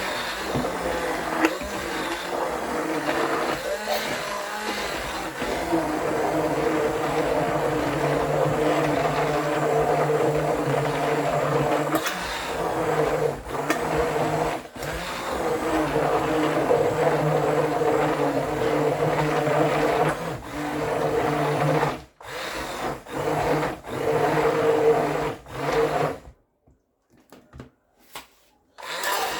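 Electric countertop blender running steadily, churning cooked pumpkin soup with milk. Near the end the sound breaks off several times and then stops.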